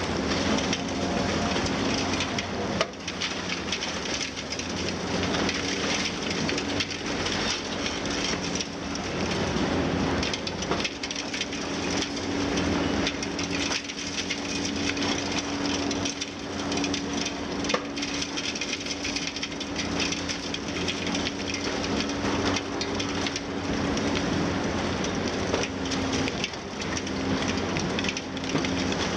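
Liebherr 954 high-reach demolition excavator working: its diesel engine and hydraulics run with a steady hum under continuous crunching, cracking and falling of concrete and masonry as the building is torn down, with a few sharper cracks.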